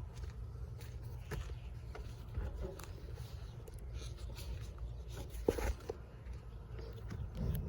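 Small clicks, scrapes and handling noise from hands working a car's sunroof glass panel loose from its mounting, with one sharper knock about five and a half seconds in, over a steady low rumble.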